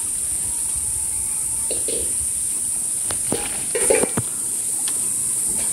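Steady high hiss, with leaves rustling and a few short clicks and snaps from the black plum tree's twigs and fruit stalks as ripe jamun are plucked by hand, clustered about three to four seconds in.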